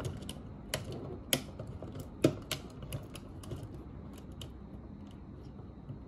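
Irregular light clicks and scrapes of solid electrical wires being handled and pushed into a GFCI outlet's back terminal, the wires knocking against the outlet and the plastic box. The clicks come thickest in the first couple of seconds and thin out after.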